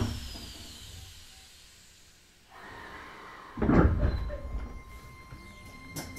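Keisei 3000-series electric train standing at a station platform. After the running noise dies away, a low hum rises, and a loud burst of noise comes about three and a half seconds in as the passenger doors open, with steady tones carrying on after it.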